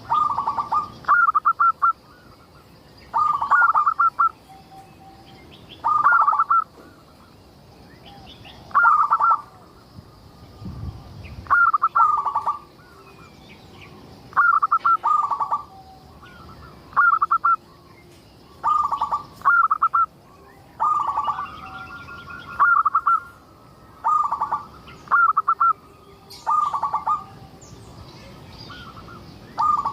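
Zebra dove (perkutut) singing vigorously: a short phrase of quick, rapid coos repeated every two to three seconds. Fainter chirps of other small birds are heard between the phrases.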